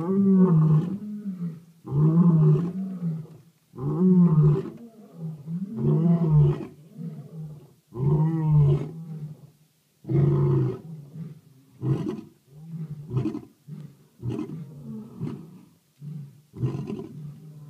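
Lion roaring: loud roars about every two seconds, which give way after about ten seconds to a run of shorter, quieter grunts as the roaring bout trails off.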